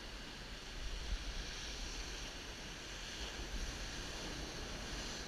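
Ocean surf washing steadily up a sandy beach, with wind rumbling on the microphone.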